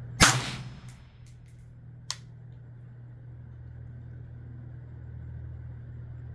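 A single suppressed shot from a 5.56 rifle with a B&T VERS36 titanium suppressor, about a quarter second in, followed by a few light clinks and a sharp tick about two seconds in. A steady low hum runs underneath.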